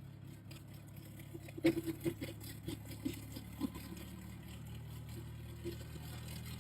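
Donkey hoof being pared with a hoof knife: a scattered run of short, sharp clicks and scrapes, thickest in the first half, over a steady low motor-like hum.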